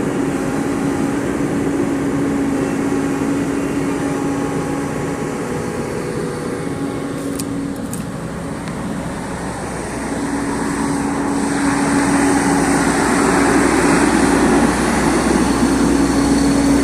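JCB excavator's diesel engine running steadily, then working harder and getting louder about ten seconds in.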